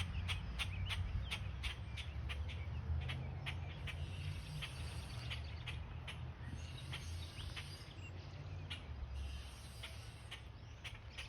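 Birds chirping, a quick run of short, sharp chirps about three a second, over a low steady rumble.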